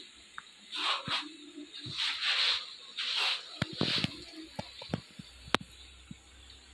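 Battered banana slices sizzling in hot oil in an iron kadai, a short hissing burst each time a piece is dropped in, about four in the first three seconds. A few sharp clicks and knocks follow, the loudest near the end.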